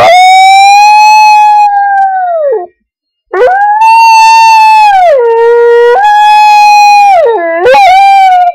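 Border collie howling close to the microphone, set off by bagpipe music that is only faintly heard. Two long howls: the first fades out about two and a half seconds in; after a short break the second wavers, dropping in pitch, climbing back and dipping again.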